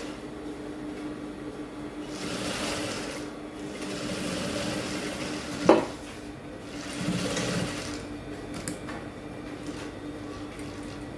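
Electric sewing machine stitching a seam in fabric, running in several short spells over a steady motor hum. A single sharp click about halfway through.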